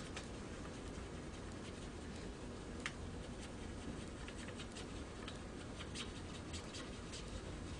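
Faint scratching of a fiber optic connector's fiber tip being air-polished against the rough side of brown polishing film, with scattered small ticks and one sharper click about three seconds in.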